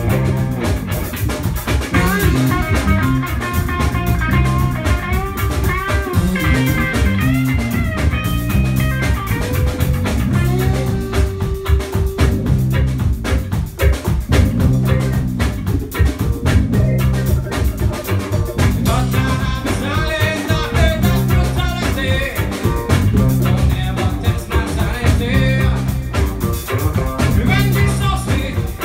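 A live roots reggae band playing: electric guitars, bass and drum kit over a repeating bass line, with a melody line above it.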